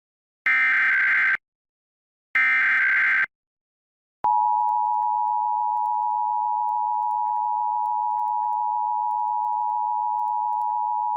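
Emergency Alert System test signal: the last two of the three SAME digital header bursts, each a buzzy data burst about a second long, encoding the alert. After a short gap, the steady two-tone EAS attention signal starts about four seconds in and holds unbroken, announcing the Required Monthly Test message.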